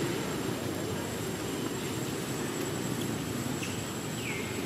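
Outdoor ambience: a steady low background rumble with a thin, high insect-like tone held throughout, and a couple of short falling chirps near the end.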